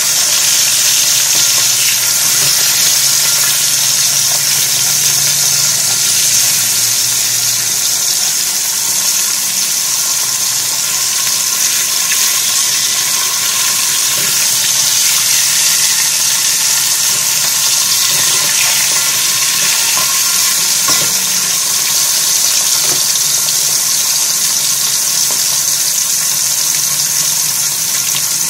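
Whole ikan kerisi (threadfin bream) shallow-frying in hot oil in a metal wok, sizzling steadily in a dense, even hiss.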